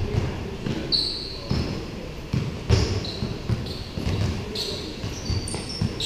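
Basketball bouncing on a hard court during a game, a string of knocks, with short high-pitched sneaker squeaks from players cutting on the floor.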